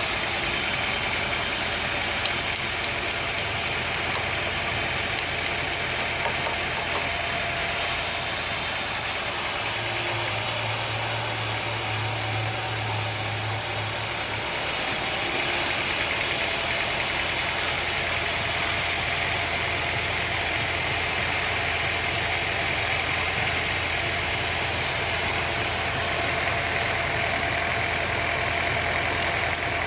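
Sawmill machinery running steadily, a continuous mechanical drone with a low hum, getting slightly louder about halfway through.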